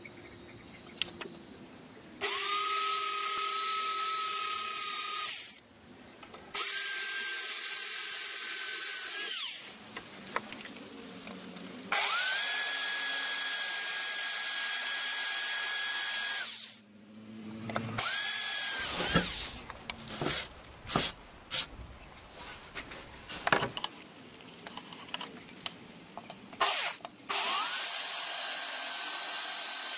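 Hand-held electric drill boring into a steel bar with a twist bit, running in several bursts of three to four seconds, each starting with a quick rise in pitch and then whining steadily. Scattered clicks and knocks fill the gap before the last run.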